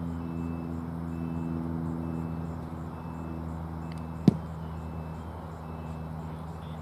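A baseball pitch smacking into the catcher's leather mitt: one sharp, loud pop about four seconds in, over a steady low engine hum.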